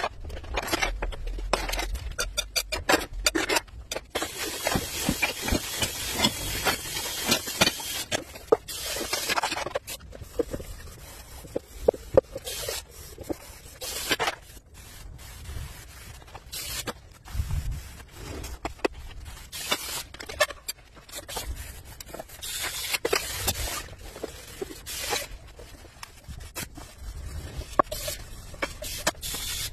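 Dishes washed by hand: a sponge scrubbing metal pots, pots and pans knocking and clinking against each other and the sink, and tap water running and splashing in several stretches as they are rinsed.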